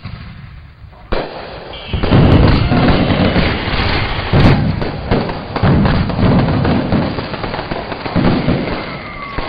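Fireworks explosion sound effect: a string of booms and crackles that starts suddenly about a second in.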